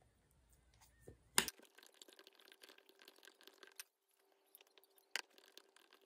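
Quiet, rapid clicking of typing on a laptop keyboard, in two runs with a short pause between, over a faint steady hum. A sharper click comes about a second and a half in, and another near the end.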